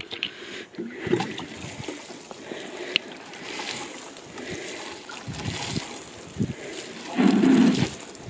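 Nematode solution sprinkling from a watering can's rose onto bare soil, an uneven hiss that comes and goes, with a few light knocks and a louder low rumble of wind on the microphone about seven seconds in.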